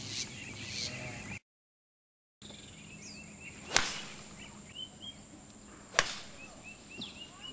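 Golf club striking the ball off the tee twice: a sharp crack about four seconds in and another about two seconds later. Small birds chirp behind, and the sound cuts out completely for about a second near the start.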